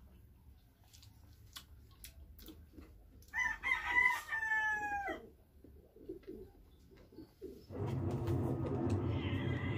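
A rooster crows once, about three seconds in: one long call about two seconds long that falls in pitch at the end. Faint clicks come before it, and near the end a louder, steady sound begins.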